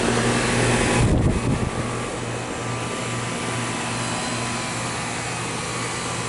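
Goodman central air-conditioner outdoor condensing units running: a steady fan rush over a constant low hum, with the main level unit freshly started. There is a brief low rumble about a second in.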